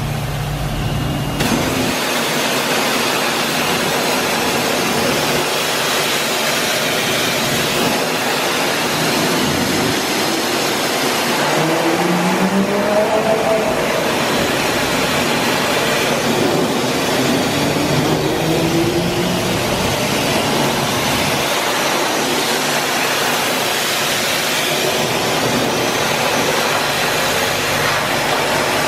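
High-pressure wash wand at a self-service car wash, spraying a jet of water onto a car's alloy wheel and tyre: a steady, loud hiss of spray. A faint tone rises and falls under it around the middle.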